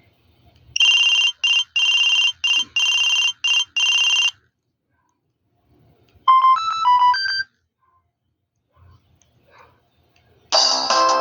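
Built-in ringtones of an au W31K Kyocera mobile phone played in turn. First an electronic ring of about seven short buzzy bursts, then a brief run of about six beeped notes, and near the end a fuller melody ringtone begins.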